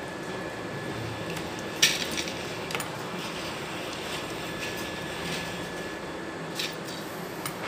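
Handfuls of wet, soaked horse gram scooped out of water and dropped into an aluminium pressure cooker: soft wet squishing with a few sharp clatters against the metal pot, the loudest about two seconds in.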